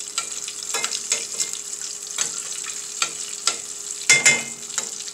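Breaded chicken breast frying in hot oil, a steady sizzle with sharp crackles and pops, as the oil is spooned over it. A metal spoon clinks against the stainless pan, loudest about four seconds in.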